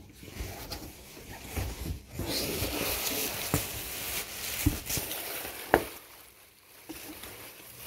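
Plastic bubble wrap rustling and crinkling as it is pulled and unwrapped by hand, with a few sharp clicks in the second half.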